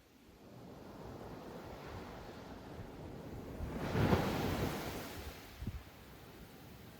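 Ocean surf on a beach: a wave swells and breaks about four seconds in, then its wash fades away.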